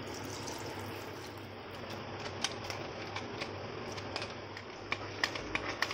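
A small whisk clicking and scraping against a bowl as milk is stirred into thick semolina cake batter: faint scattered clicks that come more often near the end.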